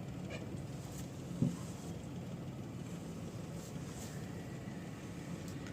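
Mahindra XUV300's engine idling steadily, with one light click about a second and a half in. No creak comes from the steering column, which has just been repaired and greased.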